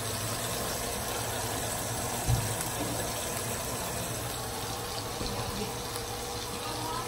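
A raw ground-beef patty frying in oil in a nonstick skillet, with a steady sizzle. A single low thump about two seconds in.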